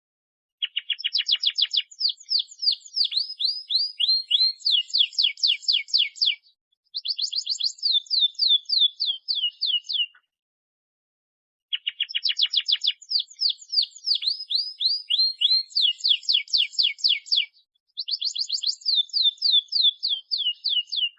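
Domestic canary singing its long rolling song, runs of rapid repeated downward-sweeping notes changing from one trill to the next. It sings in two long bouts with a short break about ten seconds in, the second bout repeating the first.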